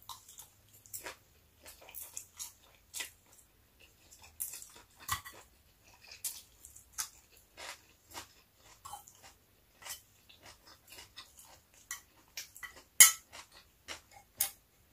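Close-up eating sounds: wet chewing and mouth smacks on stir-fried noodles (pancit guisado), with fork clicks against the plate. The loudest is a sharp click about 13 seconds in.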